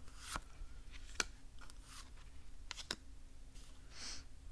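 Oracle cards being dealt one at a time onto a reading mat: a handful of light clicks and taps as the cards are pulled from the deck and set down, with a short brushing slide of card on mat about four seconds in.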